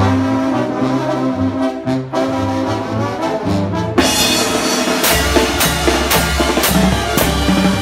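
Live brass band playing an instrumental song intro: held brass notes over a bass line, then the drum kit and cymbals come in about halfway through with a steady beat.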